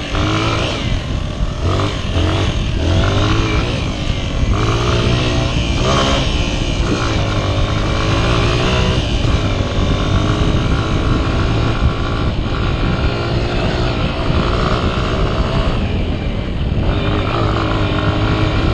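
Honda XR 125 motorcycle's single-cylinder four-stroke engine being ridden off-road, its pitch rising and falling again and again as the throttle is opened and closed, over steady wind and ground noise. There is a sharp knock about six seconds in.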